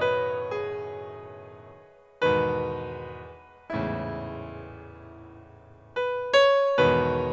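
Background piano music: slow chords struck every second or two, each left to ring out and fade.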